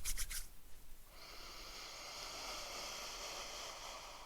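Hands rubbing beard butter through a beard with quick brushing strokes that stop about half a second in, then a long, steady sniff through the nose lasting about three seconds, taking in the scent.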